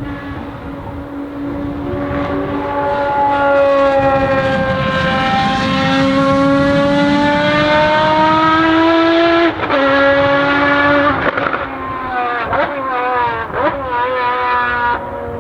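Ferrari FXX Evo's V12 engine at high revs on track, its pitch slowly climbing and getting louder. About nine and a half seconds in, an upshift drops the pitch, and near the end it lifts off with several quick downshifts and throttle blips.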